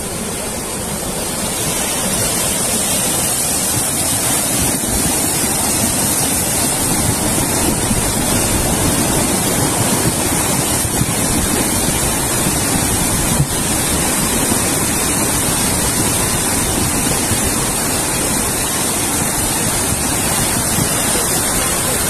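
Muddy flash-flood water rushing and churning over rocks and debris in a steady, loud torrent that builds slightly over the first couple of seconds.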